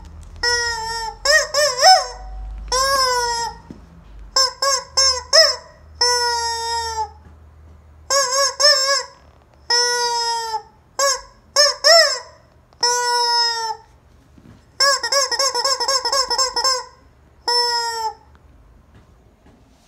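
Rubber squeaky chicken toy squeezed over and over, giving honking squeals. Some come in quick clusters of short squeaks, others are held about a second and drop in pitch at the end, with short pauses between.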